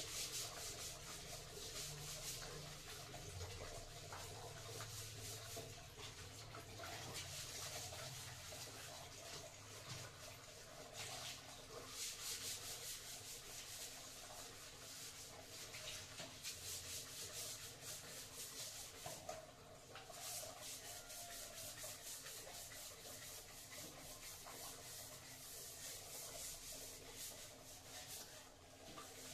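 Scrubbing bathroom tiles by hand: a steady run of quick scratchy rubbing strokes, with a brief lull now and then.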